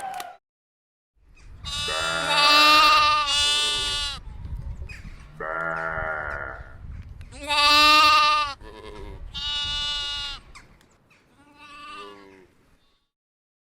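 Bleating farm animal, a stock sound-effect recording: a series of wavering bleats with short pauses between them, the last one fainter.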